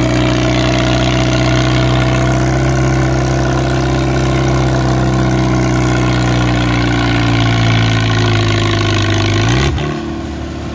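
McCormick Farmall H tractor's four-cylinder engine running steadily under load while it pulls a weight sled. Near the end its pitch drops suddenly as the engine slows.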